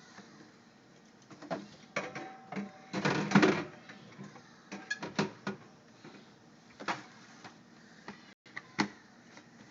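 Aluminium soda cans knocking and clinking against one another and the refrigerator shelves as they are set in one at a time, with a busier rattle of knocks about three seconds in.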